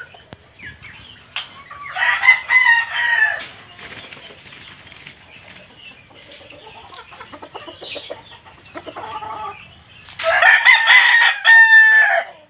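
A rooster crowing twice, once about two seconds in and again near the end, each crow a drawn-out call that drops in pitch as it ends. Quieter short chicken calls come in between.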